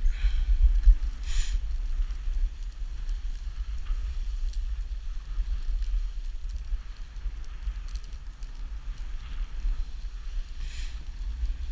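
Dog sled gliding over snow: the runners make a steady low rumble, with a few brief hissing scrapes, once or twice near the start and once near the end.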